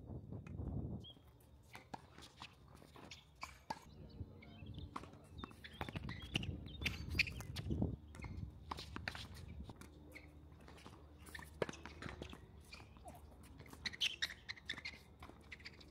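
Wind buffeting the microphone with a low rumble for about the first second, then faint scattered clicks and scuffs with a few short high chirps.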